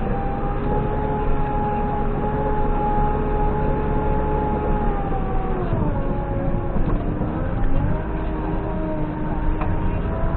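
JCB 3CX backhoe loader running, a steady pitched whine over the engine's rumble. The pitch drops about six seconds in, then climbs back about two seconds later, as the machine's revs or load change.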